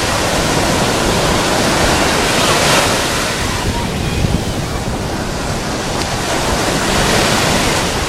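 Small sea waves breaking close by and washing up the sand as foamy swash, in surges about two and a half seconds in and again near the end.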